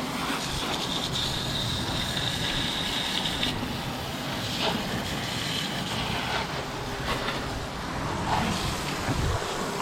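Steady spray of water washing caked mud off an RC car, with a higher hiss for the first three seconds or so.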